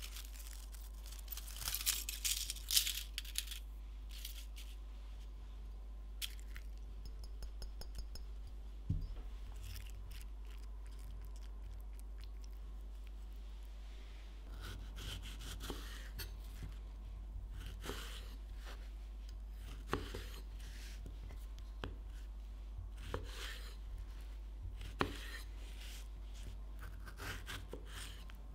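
Leaf gelatine being broken up by hand into a glass bowl: a burst of crisp crackling and tearing in the first few seconds. After that come a single knock and scattered light rustles and clicks of handling.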